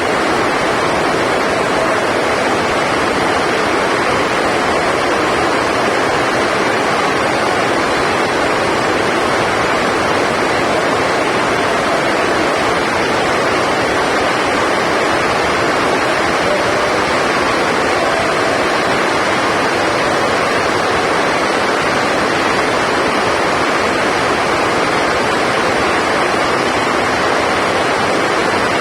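Loud, steady rushing noise that never changes in level, with no distinct hits standing out.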